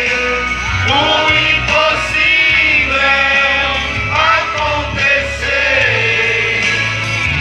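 Gospel hymn of praise sung by a man into a microphone, amplified, with a group of people singing along.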